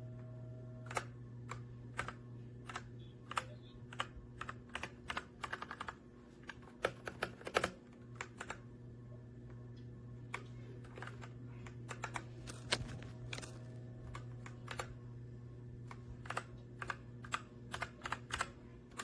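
Typing on a Redragon K617 60% mechanical keyboard: irregular key clicks coming in quick flurries, over a steady low hum.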